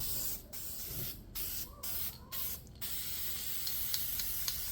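Aerosol spray paint can spraying: a hiss in four or five short bursts, then one steady spray from about three seconds in.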